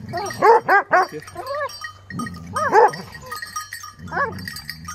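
Hunting hounds yelping in short, rising-and-falling cries, several bursts of them, as they pull at a freshly shot wild boar.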